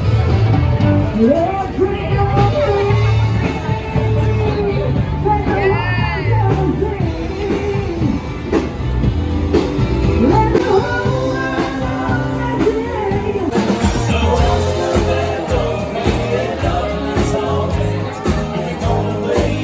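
Music: a song with a singing voice and guitar over a steady beat.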